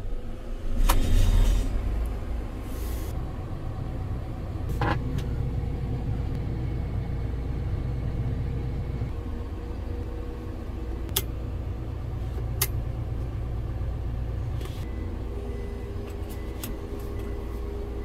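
Gleaner combine's diesel engine heard from inside the cab: the rumble swells about a second in, then settles to a steady run. A few sharp clicks sound at about 5, 11 and 12.5 seconds in.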